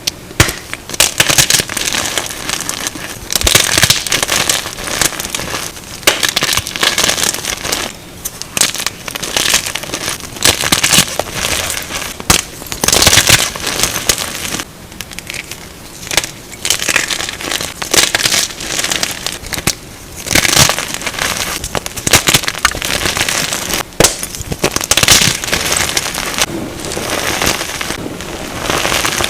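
Blocks of Plain Jane gym chalk being crushed and crumbled: a dense, continuous crackling and crunching with louder crunches every second or two, sped up to double speed.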